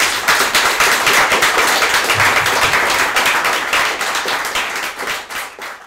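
Audience applauding: a roomful of people clapping, dense and loud, dying away near the end.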